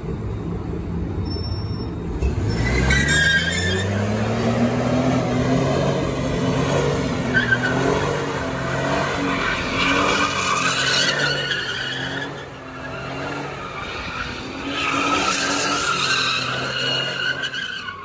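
Pickup truck's engine revving hard from about two seconds in and held at high revs while its rear tyres spin and squeal in a smoky burnout donut. The squeal eases briefly about two-thirds of the way through, comes back strongly, then dies away at the end.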